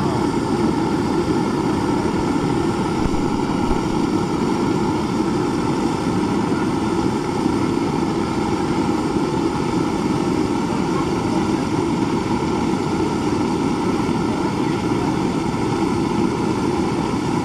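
A loud, steady mechanical drone that runs without a break or change in level.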